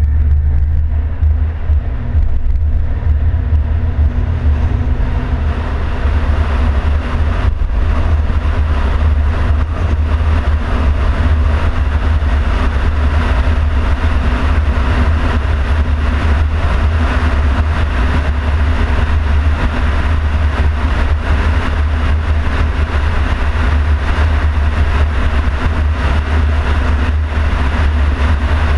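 Car driving on an open road, heard from a hood-mounted camera: a steady low rumble with road and wind noise. The noise builds over the first several seconds as the car picks up speed, then holds steady.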